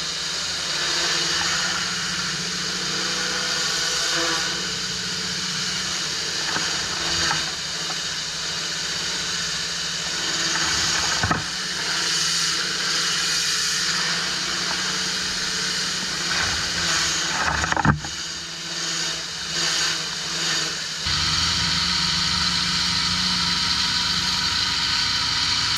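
Pressure washer running: a steady engine hum under the hiss of the water jet, with a couple of short knocks, and a fuller, louder low hum from about three-quarters of the way through.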